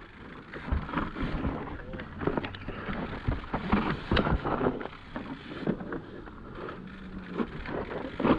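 Mountain bike riding down a dry, loose dirt trail: the tyres crunch on the ground and the bike clatters and rattles irregularly over bumps, with wind noise on the microphone.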